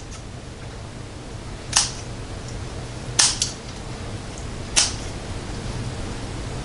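Kitchen scissors snipping through the elastic netting on a cooked leg of lamb: three sharp, short snips, each about a second and a half apart.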